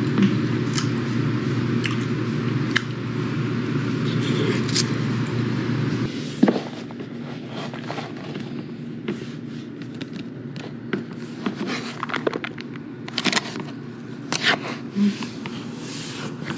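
A steady low hum for about six seconds, which stops abruptly. Then a plastic frozen-meal cup is handled by hand, its packaging giving scattered crinkles, scrapes and light taps.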